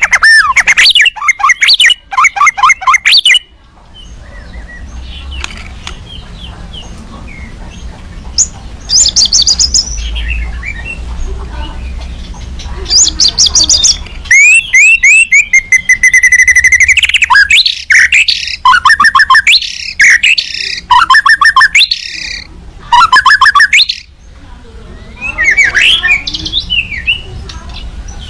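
White-rumped shama (murai batu) singing an agitated song in loud bursts of fast repeated notes and trills, broken by pauses of a few seconds. This is the kind of song used as a bait recording to make other shamas answer.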